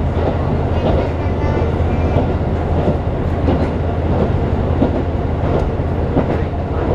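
Cabin sound of a diesel local train on the Rumoi Main Line running steadily: a constant low engine drone over the rumble of wheels on rail, with a few faint clicks from the wheels.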